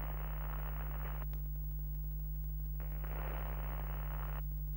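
A steady low electrical hum with soft static hiss laid over it in two stretches of about a second and a half each, one at the start and one past the middle.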